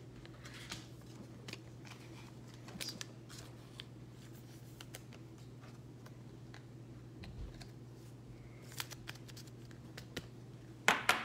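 Faint clicks and light rustles of trading cards and foil pack wrappers being handled, over a steady low electrical hum, with a louder crinkle about eleven seconds in.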